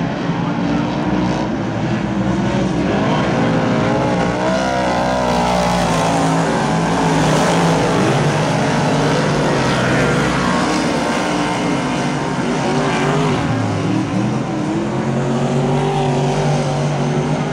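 Several superstock race cars racing together, their V8 engines running hard, with overlapping engine notes that rise and fall in pitch as the cars accelerate and lift through the turns.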